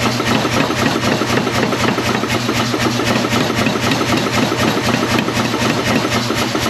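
Power hammer running, its dies striking hot mild steel bar stock in rapid, even blows, several a second, over a steady machine hum. The steel is being drawn out against stop blocks that limit how far the dies close.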